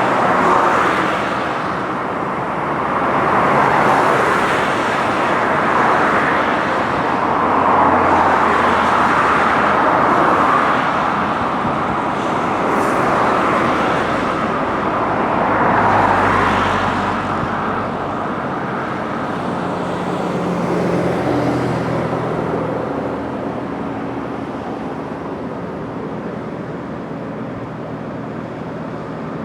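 Road traffic passing close by, cars going past one after another in repeated swells, with the lower hum of a vehicle's engine around the middle.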